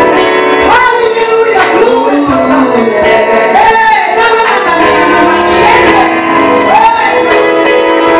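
A woman sings a gospel song into a handheld microphone, amplified through a PA, with her voice wavering and sliding between long held notes. Steady sustained backing notes run beneath her singing.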